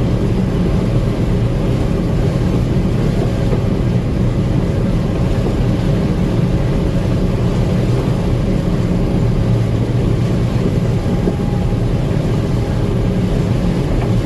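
Gleaner M2 combine running steadily while harvesting corn, its engine and threshing machinery making a constant, unchanging drone.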